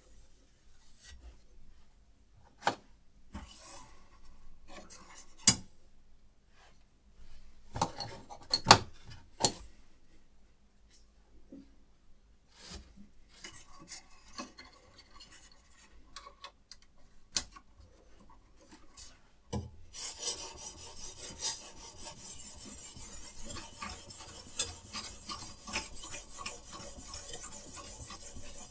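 Scattered clicks and knocks of handling, then, about two-thirds of the way through, a steady scraping of a diamond sharpening stone being stroked along a knife blade.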